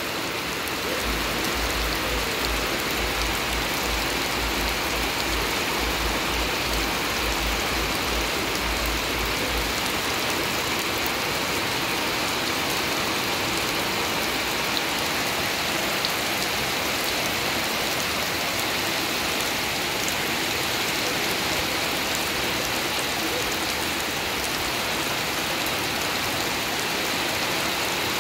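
Steady rain falling on wet grass and a shallow puddle on gravel, an even hiss of drops throughout.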